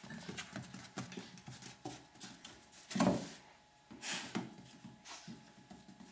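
Two Pomeranian dogs playing on a wooden floor: quick, irregular tapping and skittering of claws on the boards, with a louder burst about three seconds in and another about a second later.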